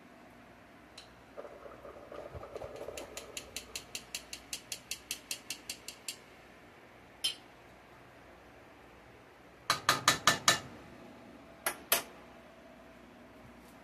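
A utensil clinking and knocking against a cooking pot: a run of light ticks about four a second that grows louder, then about two thirds of the way through a quick burst of five sharp knocks, and two more shortly after.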